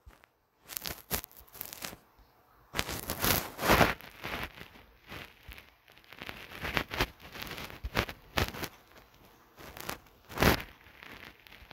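Irregular soft taps, crackles and rustling with short pauses between: handling noise from a smartphone being held and tapped, close to its microphone.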